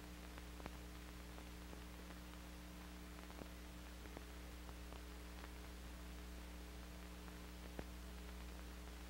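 Faint steady hum and hiss with a few light, scattered clicks: the background noise of an old film soundtrack.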